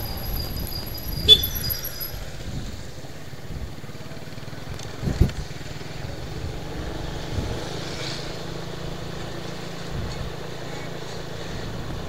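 Steady engine hum and road noise from a vehicle moving slowly along a city street, with two short knocks, about one and five seconds in.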